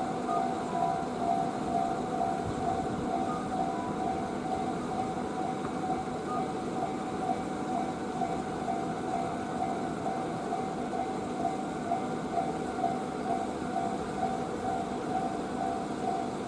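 Japanese railway level-crossing warning bell ringing: rapid, evenly spaced electronic dings that repeat without a break over a steady rumble. It is the alarm that sounds while the barriers are down for a train.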